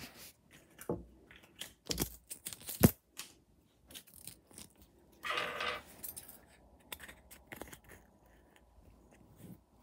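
Small hard-plastic clicks and knocks from handling a Kinder Surprise egg's yellow plastic capsule, with a half-second burst of rattling about five seconds in and light clicks near the end as the capsule is pried open.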